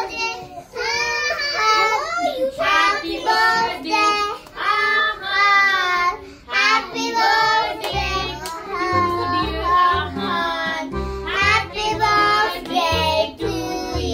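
A child's voice singing a song with music, with a bass line coming in about eight seconds in.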